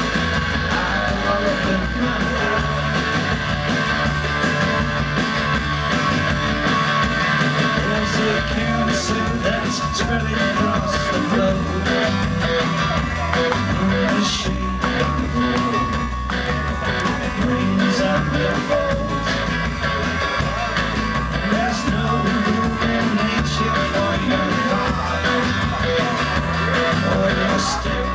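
Rock band playing live: strummed acoustic guitar, electric guitar and a drum kit with cymbal strikes, under a lead vocal.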